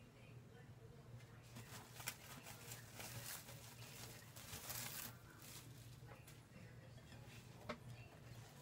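Faint rustling and crinkling of plastic cling film being pulled off a glass bowl, with a few soft knocks as the bowl is handled and tipped over. A low steady hum runs underneath.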